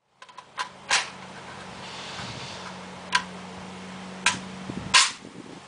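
Five sharp gunshots at uneven intervals, the loudest about a second in and near the end, each followed by a short echo.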